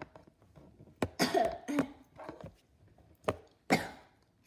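Sharp coughing: a pair of coughs about a second in, then two more near the end.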